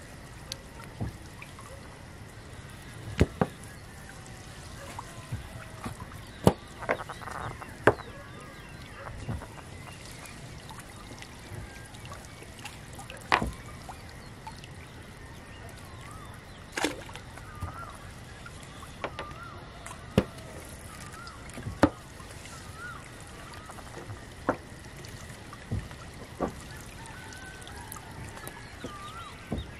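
Sharp knocks and clatters every second or two as a fishing net is hauled and worked aboard a boat. Faint wavering calls sound in the background from about halfway through.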